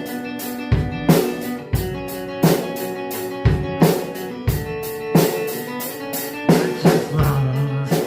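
Live band playing an instrumental passage: drum kit keeping a steady beat of kick and snare under sustained electric guitar chords.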